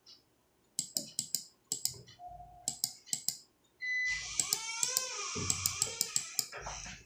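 Quick clicks of a computer mouse and keyboard, in small clusters. From about four seconds in, a louder sustained noise with a wavering pitch runs under the clicks until the end.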